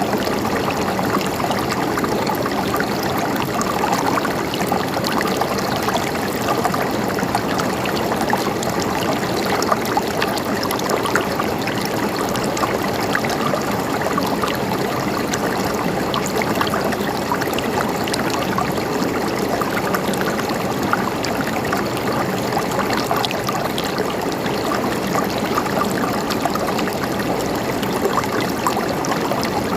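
Stream water gurgling and trickling steadily over stones, with small splashes throughout.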